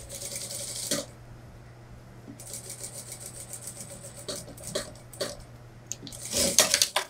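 Industrial lockstitch sewing machine stitching a suit-jacket seam in short runs: a one-second burst, a longer run of rapid stitches from about two and a half seconds in, a few single stitches, and a last loud run near the end. A steady low motor hum runs underneath and stops at the very end.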